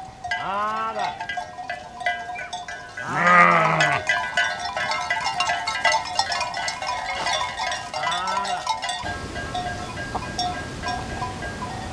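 Sheep bleating three times, the loudest about three seconds in, over the clinking of bells as the flock moves. After about nine seconds it gives way to a steady outdoor hiss.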